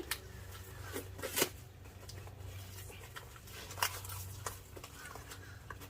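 Scattered clicks and rustles of hands rummaging through packaging, searching for the bike lock, over a steady low hum.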